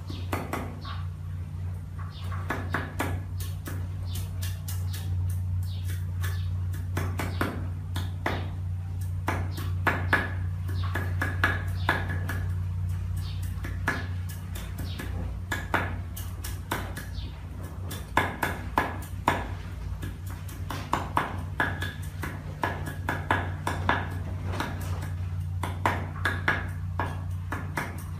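Kitchen knife chopping on a wooden cutting board: runs of quick, sharp knocks, over a steady low hum.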